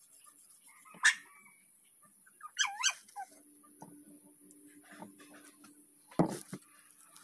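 Meat cleaver chopping raw pork on a wooden board: a sharp chop about a second in, then a heavy chop and a lighter one near the end. In between comes a brief high, squealing yelp from an animal.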